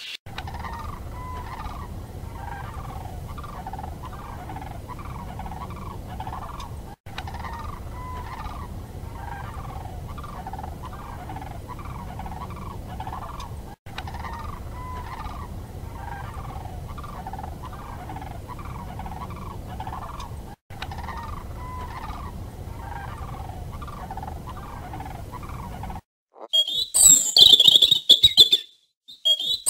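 An animal's call, a short note repeated about twice a second in a steady series, with brief dropouts about every seven seconds. Near the end a louder, much higher, shrill chirping takes over.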